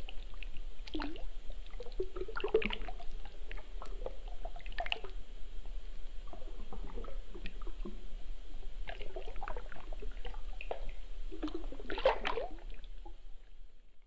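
Wet liquid sounds: irregular drips, squishes and small splashes as if things are moving through liquid, loudest about twelve seconds in, then fading out at the end.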